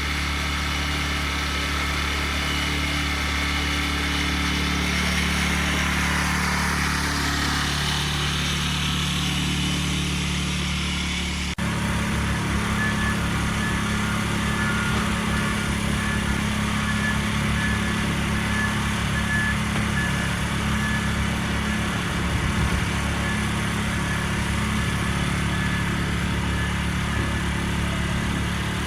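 Small gasoline lawnmower engine running steadily. About eleven seconds in, its note changes abruptly to a different steady run.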